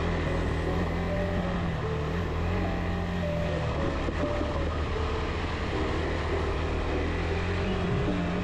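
Single-cylinder adventure motorcycle engine running steadily at moderate revs while riding a dirt trail, its pitch rising slightly near the end, over a steady rush of wind noise.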